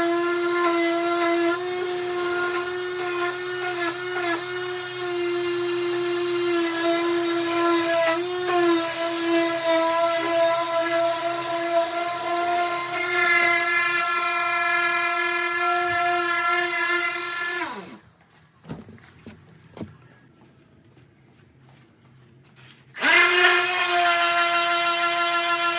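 Electric power sander running steadily on wood with a high motor whine. About two-thirds through it is switched off and the whine falls away, leaving a few seconds of quiet with small handling knocks. Near the end it starts up again.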